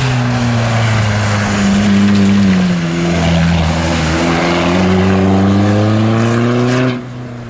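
Rally car engine running hard under load, its pitch dipping about two to three seconds in and then climbing steadily as the car accelerates, until the sound cuts off abruptly near the end.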